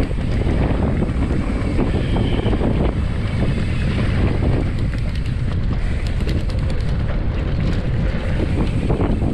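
Wind buffeting the microphone of a camera riding on a mountain bike, a steady low rumble with the noise of the tyres on the dirt trail. From about five seconds in it is broken by short clicks and rattles from the bike over rough ground.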